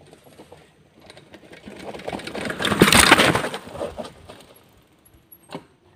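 Mountain bike tyres rolling over dry leaves and twigs on a dirt trail, crunching as the bike comes close and passes, loudest about three seconds in and then fading. A single sharp click near the end.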